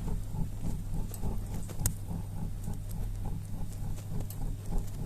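Wood pyrolysis gases afterburning in a brick fireplace's firebox: the flame pulses with an irregular low puffing rumble, 'boom-boom-boom', over a steady low hum, with an occasional sharp crackle.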